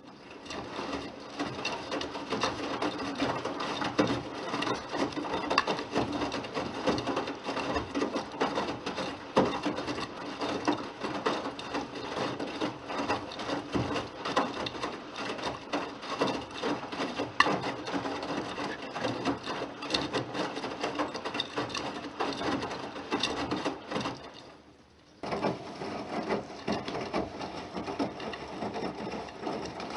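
Bosch WAQ28477EX Serie 6 front-loading washing machine in its wash phase, the drum turning and the wet laundry tumbling and thudding with a steady clatter. The drum stops for under a second near the end, then starts turning again.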